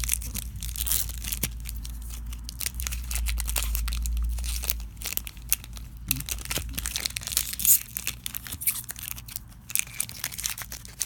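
A Yu-Gi-Oh! trading-card booster pack's foil wrapper being torn open and crinkled by hand: a dense run of sharp crackles and rips. A low rumble sits under the first half.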